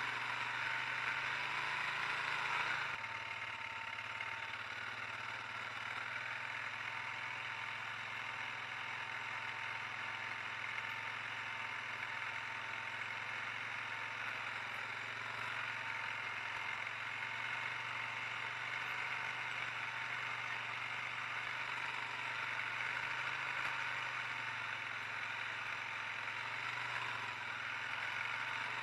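ATV engine running steadily while towing a heavy log on a ski sled. It is heard close up at first, then, about three seconds in, from farther off and more faintly.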